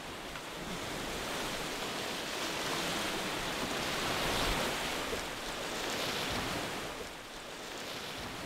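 Outdoor ambience of wind and small waves washing on a lakeshore: a steady wash of noise that swells about four to six seconds in and eases off near the end.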